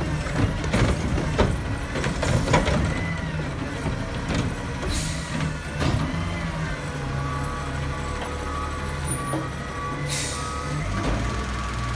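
Garbage truck at work: its diesel engine running throughout, with sharp clanks and knocks in the first few seconds, two short air-brake hisses about five and ten seconds in, and a repeated beeping tone in the second half.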